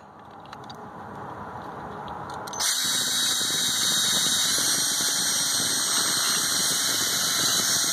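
Cordless drill turning a Time-Sert counterbore bit into a metal bolt hole. The cutting builds for the first couple of seconds, then from about two and a half seconds in turns to a loud, steady, high-pitched squeal.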